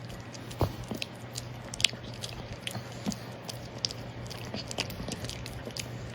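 Chewing: irregular crunching clicks, several a second, over a steady low hum.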